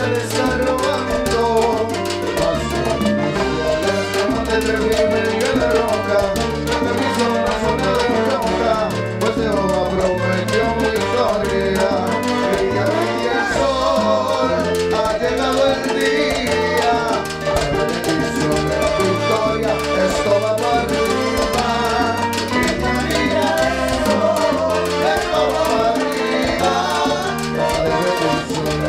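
Live salsa band playing: trombone-led horn section over a steady bass line, congas and timbales, with a lead singer.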